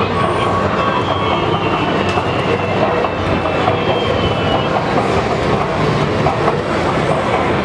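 Loud, steady arcade din: a dense wash of game-machine noise with a few faint electronic tones early on.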